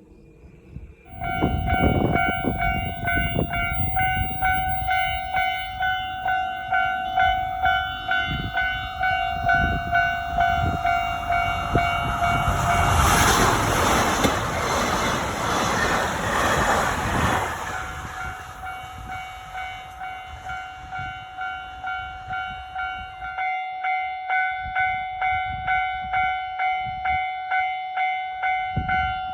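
Level crossing warning bell ringing in a steady rhythm as a diesel train passes over the crossing. The train's rumble and wheel clatter build up, peak in a loud rush for about five seconds midway that half drowns the bell, then fade while the bell keeps ringing.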